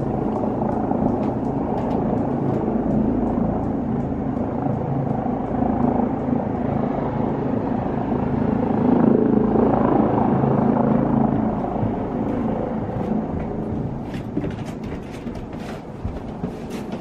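Helicopter landing, heard from a distance: a steady rotor and engine rumble that swells about halfway through and then fades over the last few seconds. A few faint clicks come near the end.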